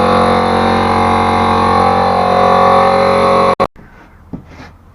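A loud, steady mechanical drone of many even pitches, which cuts off abruptly about three and a half seconds in. Faint rubbing and scraping follows.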